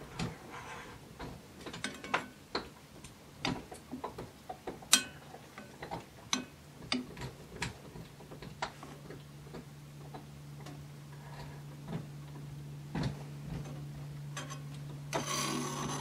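A metal spoon scraping and tapping against a cast iron skillet as melting butter is spread over the bottom and up the sides, in irregular clicks with scrapes near the end.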